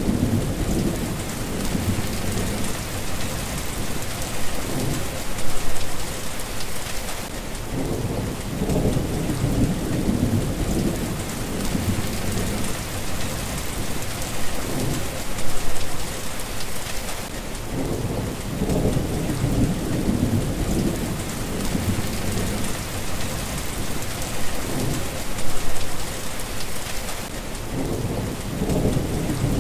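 Steady rain hissing, with low rolling thunder rumbling on and off and swelling loudest about every ten seconds.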